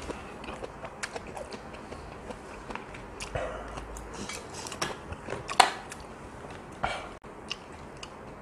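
Close-miked chewing and eating of offal stew, with scattered sharp clicks and knocks of chopsticks and a spoon against the pan; the loudest click comes a little past halfway.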